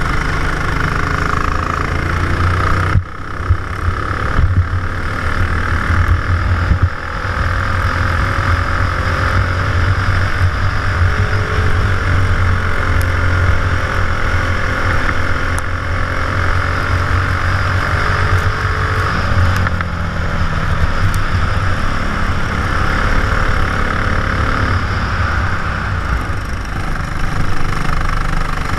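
Racing kart engine running hard through a lap, heard close up from the kart itself, with brief dips about three and seven seconds in.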